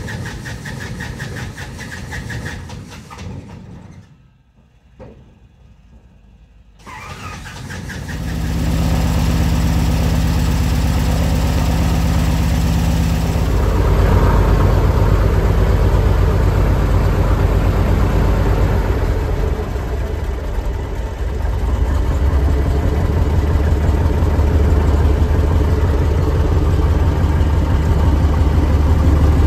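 Cessna L-19 Bird Dog's six-cylinder Continental O-470 engine starting after a short quiet spell, firing about eight seconds in once primed enough, then running steadily at idle, louder from about halfway.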